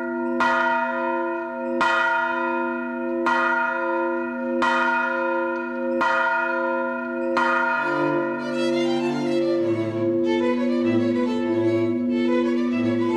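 A single church bell tolling, struck six times about a second and a half apart, each stroke ringing on. About eight seconds in the strokes stop and bowed strings with a cello bass line come in over the fading ring.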